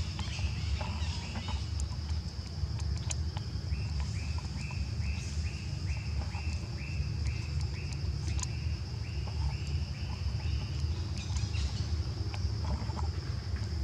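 Forest ambience: a steady high insect drone over a low rumble, with a short call repeated about every half second from about three and a half seconds in to about eleven seconds.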